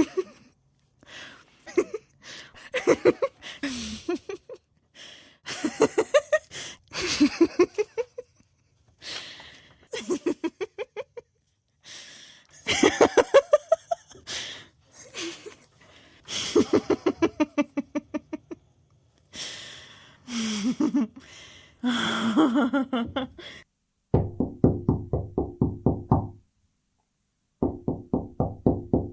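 A run of short comic sound-effect clips, one after another with brief gaps between them. Most are fast stuttering pulses, some with sliding pitched tones, and near the end comes a fast, even knocking beat over a low tone.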